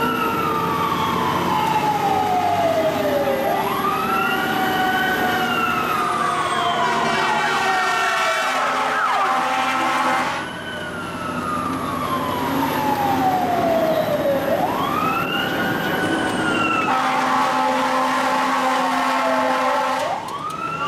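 Fire engine siren heard from inside the cab, wailing in long cycles: a quick rise in pitch, then a slow fall over several seconds. A steadier blaring tone joins in twice.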